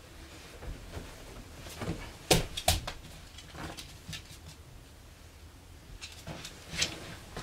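A few sharp knocks or taps over quiet rustling. The two loudest come close together about two and a half seconds in, and another comes near the end.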